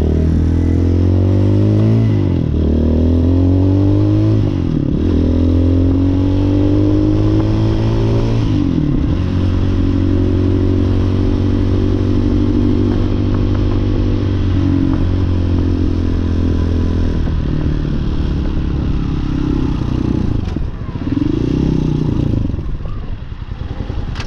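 Hawk 250 motorcycle engine, heard from the rider's seat, pulling up through the gears with three upshifts in the first nine seconds. It then holds a steady speed and winds down as the bike slows near the end.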